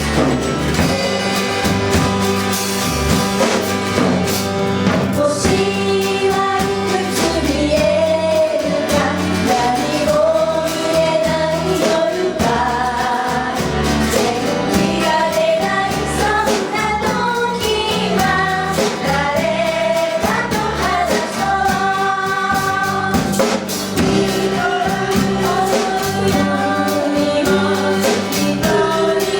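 Live band performing a pop song, with several voices singing the melody together over a steady bass beat.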